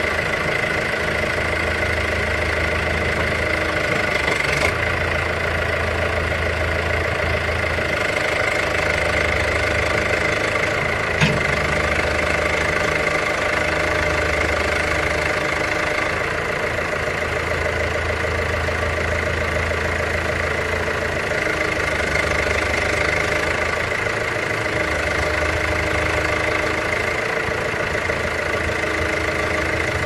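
John Deere 310D backhoe's four-cylinder diesel engine idling steadily, with a short sharp click about four and a half seconds in and a louder one about eleven seconds in.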